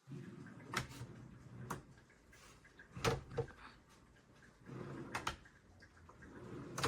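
Under-desk keyboard tray sliding along its rails about four times. Each stretch is a low rumble, broken by one or two sharp clacks as it stops. The loudest clacks come about three seconds in.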